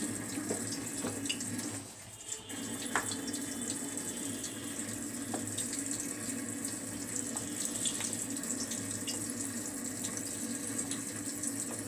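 Hand squishing and mixing wet mashed aubergine bharta with gram flour in a steel bowl, with small wet clicks, over a steady rushing background noise that drops out briefly about two seconds in.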